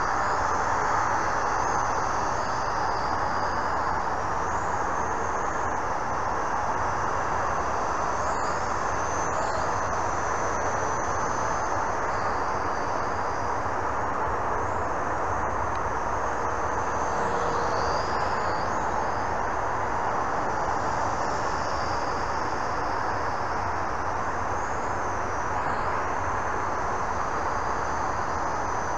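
Visuo X809HW toy quadcopter flying, its motors and propellers giving a steady buzz with a high whine that wavers up and down in pitch.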